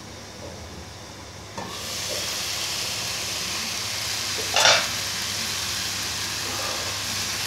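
Chicken in onion, garlic and chilli paste frying in a kadai: the lid comes off with a light click about a second and a half in, and the steady sizzle of the uncovered pan takes over. A short, louder burst of noise comes a little past halfway.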